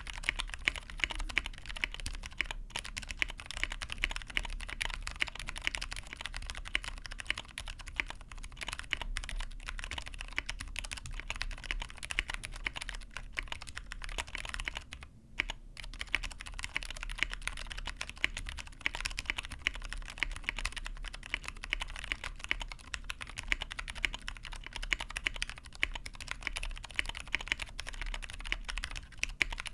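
Fast, continuous typing on a Tofu65 mechanical keyboard with lubed Cherry Clear tactile switches on Zeal 65g springs, an aluminium plate and ePBT keycaps. The keystrokes stop briefly about halfway through.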